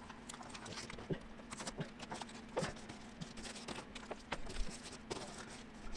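Irregular light taps, scrapes and rustles of masking paper being pressed into a car's steel floor pan and marked up to make a pattern, over a steady low hum.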